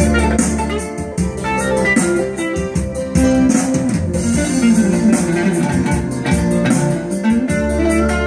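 Electric guitar improvisation on a Fender Stratocaster through a small amplifier: a run of quick single-note lines with string bends that glide up and down in pitch, over a low sustained bass.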